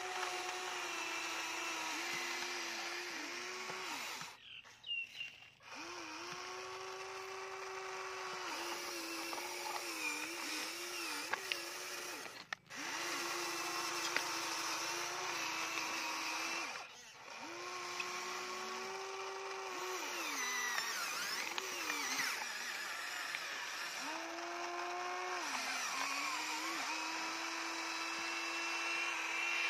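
Electric gear motors of a Huina radio-controlled toy excavator whining as the arm, bucket and tracks move, the pitch wavering and dipping. The whine stops briefly a few times, and a few sharp clacks come partway through.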